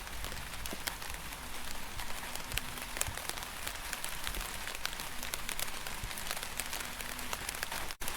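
Rain falling: a steady hiss with many sharp, separate drop hits scattered through it. Just before the end it drops out for a moment, like a cut.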